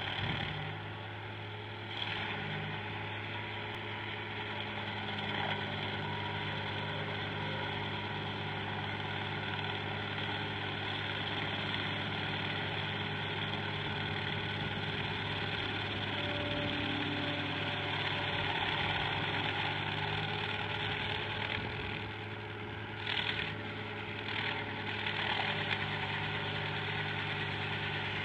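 Rayco T275 tracked stump grinder's diesel engine running steadily under load as its cutter wheel grinds into a tree stump. Twice near the end the sound briefly surges louder.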